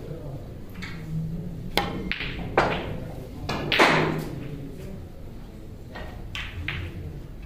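Snooker play: a few sharp clicks of cue and balls, each followed by a short noisy rush, the loudest about four seconds in.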